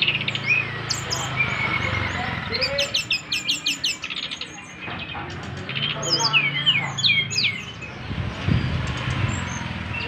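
Brown-chested jungle flycatcher singing a fast, varied song of sharp chirps, whistled slurs and trills, with a quick run of repeated notes a few seconds in.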